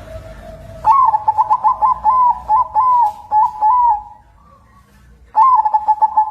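Zebra dove (perkutut) of the white 'kapas putih' colour variety singing: about a second in, a run of quick, clipped coos lasting some three seconds, then a second run of coos starting near the end.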